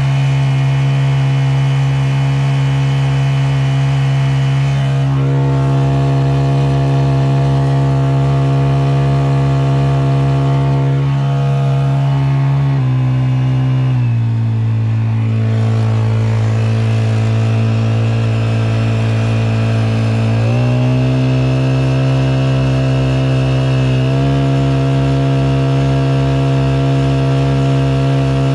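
Honda GX50 50cc air-cooled four-stroke outboard running steadily under way. Its engine speed steps down about 13 seconds in, runs lower for several seconds, then picks back up about 21 seconds in.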